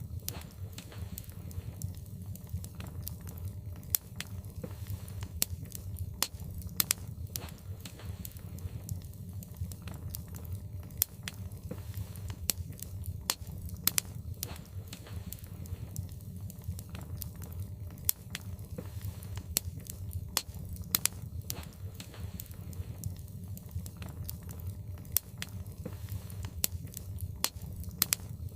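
Wood fire burning in a fireplace, crackling with frequent irregular pops, a few of them sharp and loud, over a steady low rumble.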